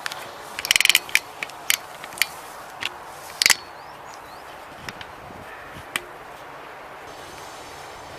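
Airsoft guns firing: a short rapid burst about a second in, then single shots at irregular gaps and another quick burst near the middle. A few fainter shots follow.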